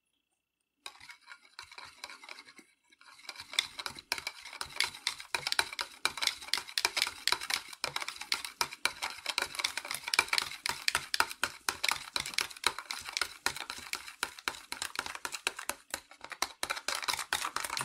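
Small metal wire whisk stirring chocolate ice cream mix powder into milk in a plastic bowl: a fast, continuous run of scraping ticks as the wires strike and rub the bowl. It starts faint and becomes steady about three seconds in.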